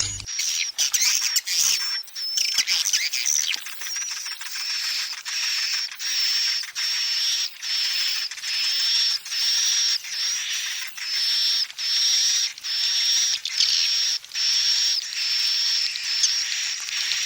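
Recorded edible-nest swiftlet calls played as a lure: dense, high twittering over a steady high whistle-like tone. The calls come in short repeating phrases, a little more than one a second.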